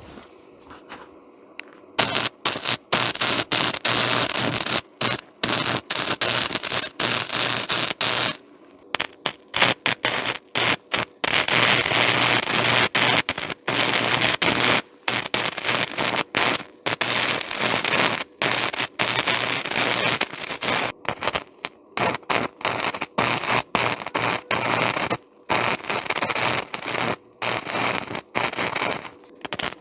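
Small electric arc welder welding a repair on a steel hay feeder: a loud crackling, sputtering arc that starts about two seconds in and breaks off and restarts many times, with a longer pause about eight seconds in.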